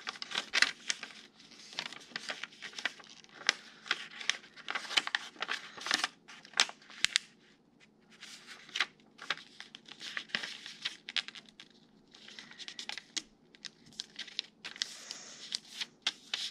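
A sheet of paper being folded and creased by hand against a wooden tabletop: irregular crinkling and crackling rustles as it is bent and pressed flat, with a short lull about halfway through.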